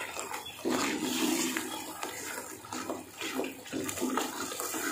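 Thick masala paste frying in oil in an aluminium pot while a spatula stirs through it: an uneven, wet sizzling and bubbling, broken by the strokes of the spatula.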